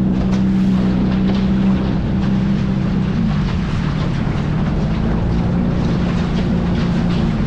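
Outboard motor on a small inflatable dinghy running at a steady cruising speed, with a constant engine drone over the rush of water past the hull.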